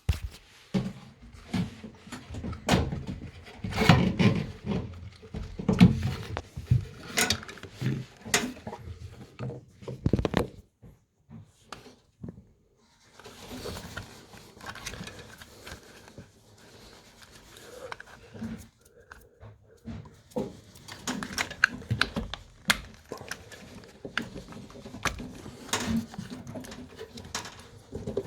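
Irregular knocks, clicks and thuds of handling noise, with a near-silent pause about eleven seconds in.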